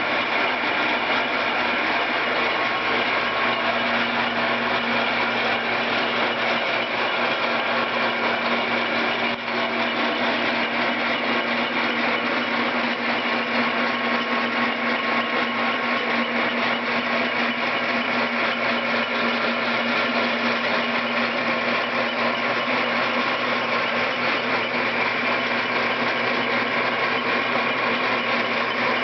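Old Hendey engine lathe running steadily while turning a taper along a steel rifle barrel: a constant machine hum with a steady high whine, broken only by one brief dip about nine seconds in.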